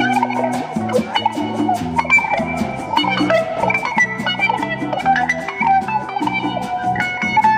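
West African band music played live with no singing: a bright electric guitar picks quick melodic runs over a walking electric bass, a drum kit with steady cymbal ticks, and congas.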